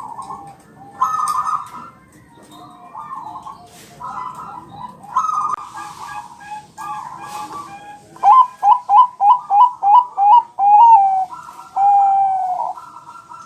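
Zebra doves (Bangkok-type perkutut) cooing, several phrases overlapping. About eight seconds in the loudest bird sings its song: a quick run of about nine short clipped notes, then two longer drawn-out coos.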